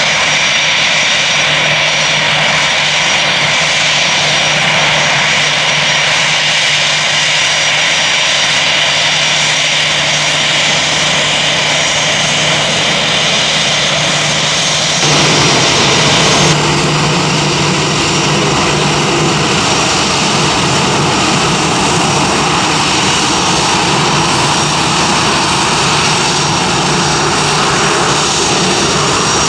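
Airbus A320-200's twin jet engines running at low power as the airliner rolls slowly along the runway: a steady, loud engine noise with a high whine. About halfway through the sound abruptly fills out with more low rumble.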